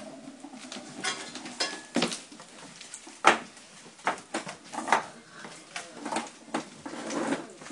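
Irregular knocks, clatters and scuffles from one-month-old Rhodesian Ridgeback puppies playing on a wooden floor, a plastic container among the things being knocked about.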